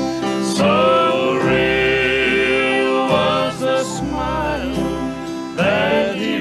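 Male southern gospel quartet singing, backed by electric and acoustic guitars.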